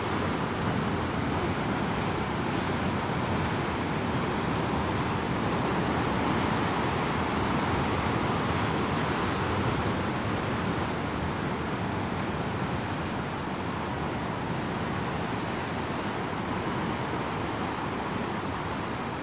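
Rough winter sea breaking and churning over a rocky shore: a continuous wash of surf and white water that swells a little in the middle and eases slightly toward the end.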